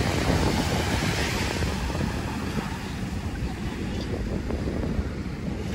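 Wind buffeting the microphone, with the steady wash of ocean surf on the beach behind it.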